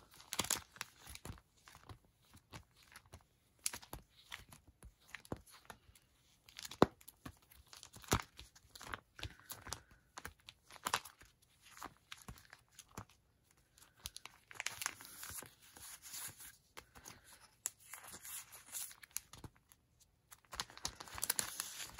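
Sticker sheets being handled and flipped through by hand: irregular paper rustling and crinkling with small sharp clicks, busier about fifteen seconds in and again near the end.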